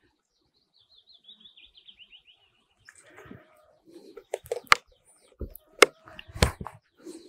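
A small bird gives a faint quick run of high chirps, falling slightly in pitch. It is followed by a series of clicks and knocks from a metal spoon in a plastic cup of sour cream and a plastic oil bottle being handled and set down, as oil is spooned in and stirred.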